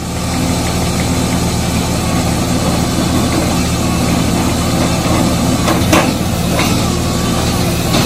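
Bobcat skid steer's diesel engine running steadily at a constant speed, with a couple of brief clicks about six seconds in.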